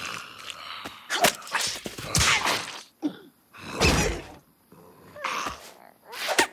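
Cartoon sound effects and a character's wordless vocal noises: a string of short, separate bursts with brief gaps between them, the strongest about four seconds in.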